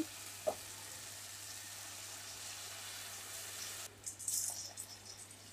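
Vermicelli and vegetables sizzling softly and steadily in a hot oiled kadhai. About four seconds in, the sound changes abruptly to scattered crackles and pops as the water just added to the hot pan starts to bubble.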